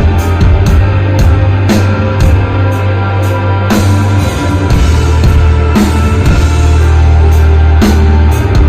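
Rock band playing live and loud: a heavy, sustained bass note under electric guitar, with the drum kit keeping a steady beat of cymbal strikes and a heavier crash about every two seconds.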